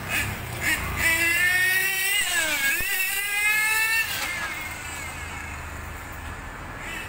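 RC car's motor whining at speed, its pitch dipping briefly about two and a half seconds in and climbing again as it accelerates, then fading out about four seconds in.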